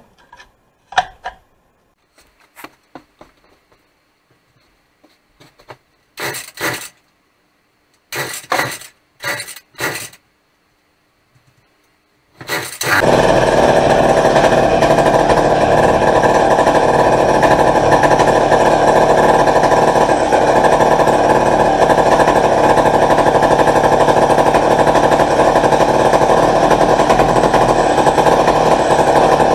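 Two-stroke engine of a 1958 McCulloch Mac 35A chainsaw. A few short noisy bursts and clicks come first, then about 13 seconds in the engine starts and runs loud and steady.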